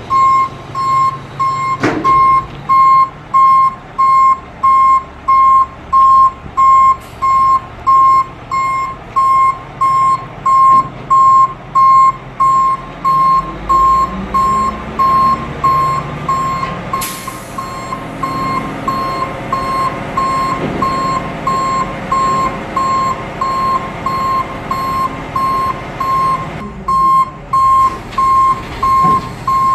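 Refuse truck's backup alarm beeping steadily about once a second while the truck reverses, its Caterpillar C11 diesel running underneath and rising in pitch for a few seconds midway. A short sharp hiss cuts in about halfway through.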